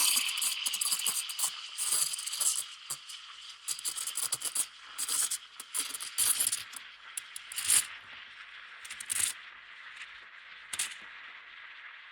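Coffee-making sounds: a loud hiss at the start that fades over the first few seconds, with irregular rattles and clicks that grow sparser toward the end.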